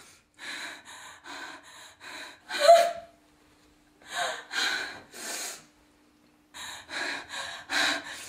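A woman gasping and panting in panic: quick, ragged breaths in runs of several, split by short pauses. The loudest gasp comes a little over two and a half seconds in and has a catch of voice in it.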